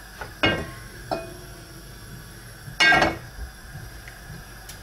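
Wooden spoon knocking and scraping against a nonstick frying pan while spreading oil around it: three short knocks with a brief ring from the pan, the loudest about three seconds in.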